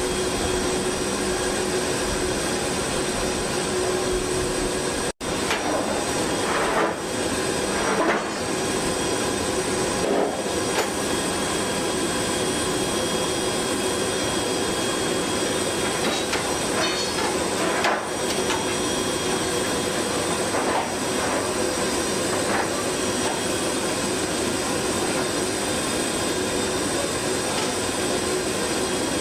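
Steady jet engine whine and rush from aircraft running on the flight line, with a few metallic clanks as aluminium loading-ramp sections are handled and set down.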